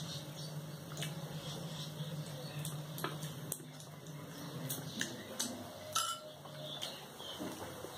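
Metal spoon clinking and scraping against a plate during a meal of rice eaten by hand, with scattered light clicks of eating, over a low steady hum.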